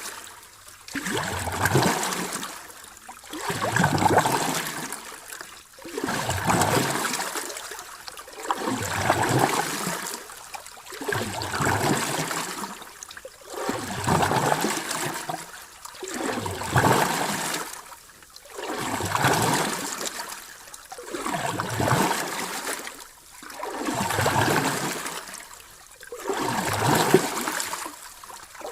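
Sea waves washing in and out in a steady rhythm, each surge of foaming water swelling and fading about every two seconds.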